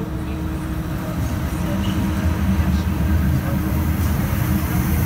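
Electric locomotive rolling slowly past at close range: a steady low rumble of its running gear and machinery with a faint steady hum, growing somewhat louder as it draws level.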